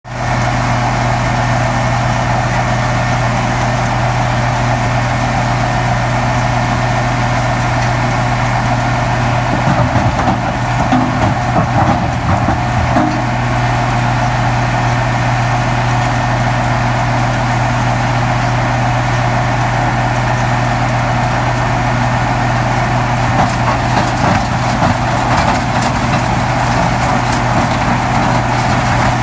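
Rebel closed-circuit impact crusher running steadily with a deep, constant drone while it crushes concrete demolition debris. Irregular clattering of concrete chunks is loudest about ten to thirteen seconds in.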